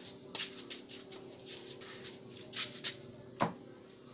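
Short scraping and rubbing noises and one sharp click about three and a half seconds in, from hands shifting the deflection yoke on the picture tube's neck of a Sharp slim CRT TV to centre the picture.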